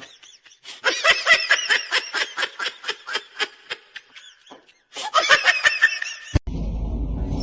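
A person laughing in rapid, high-pitched peals, in two bouts with a short break between. About a second before the end it cuts suddenly to a louder, steady noise.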